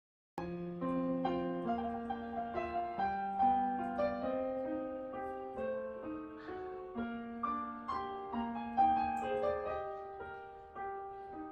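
Background piano music: a slow, gentle melody of held notes over chords, starting abruptly just under half a second in.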